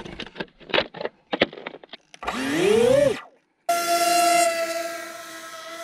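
A pair of Emax 2206 brushless motors driving 5-inch propellers spin up in a rising whine. After a brief break they run at a steady, high-pitched whine at launch throttle. Short clicks and knocks of hands on the plastic airframe come first.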